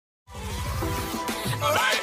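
Music starts abruptly about a quarter second in, after complete silence: held synth-like notes building up.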